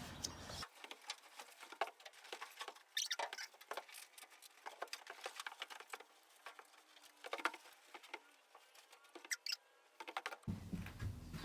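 Faint, irregular light clicks and taps, some closely spaced, with no steady machine sound.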